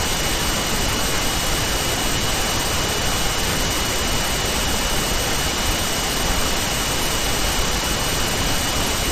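Steady, fairly loud hiss of the recording's background noise with a faint high-pitched whine running through it; nothing else.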